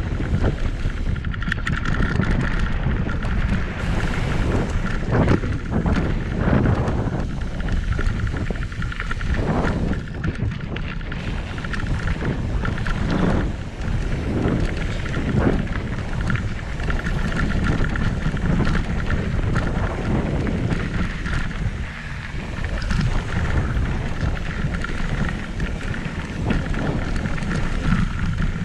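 Wind rushing over the mountain bike's handlebar-mounted camera microphone as it rides down a dirt jump line, with tyres running on dirt and gravel. Frequent knocks and rattles come from the bike over bumps and jump landings.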